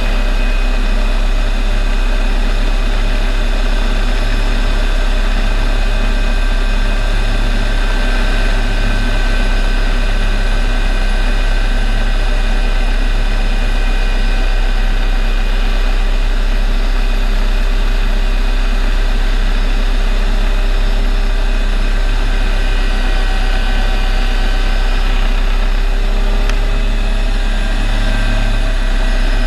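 Small helicopter's rotor and engine heard from inside the cabin in flight: a loud, steady drone with a deep rumble and several steady high-pitched tones over it.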